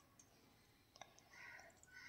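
Faint handling clicks from a small plastic toy car keychain and its metal key ring turned in the fingers, with one sharp click about a second in followed by a light rustle.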